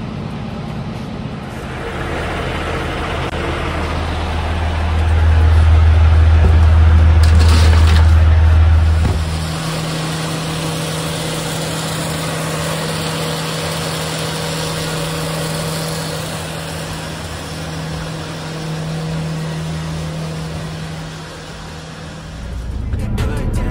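Milk tanker truck's milk pump running with the truck engine, drawing milk through the hose: a loud, deep steady hum that changes to a higher steady hum about ten seconds in.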